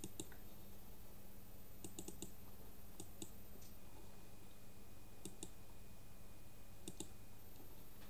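Computer mouse clicking: quick double and triple clicks every second or two while a paint program is opened, over a faint steady electrical hum.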